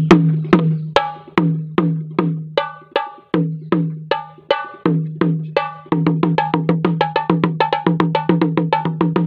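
Thammattama, the Sri Lankan paired drum, struck with two sticks, playing a drum phrase: sharp strokes that each ring with a low drum tone. About two to three strokes a second at first, then a faster, denser run from about six seconds in.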